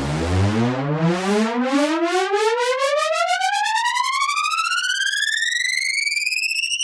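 Synthesized riser sound effect. A noisy swell clears into one pitched synth tone that glides steadily upward from a low rumble to a high whine, building tension as a riser does before a drop.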